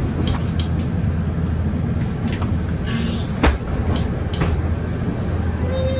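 Mercedes-Benz Citaro city bus running: a steady low rumble with scattered knocks and rattles, the sharpest about three and a half seconds in. A short beep-like tone sounds near the end.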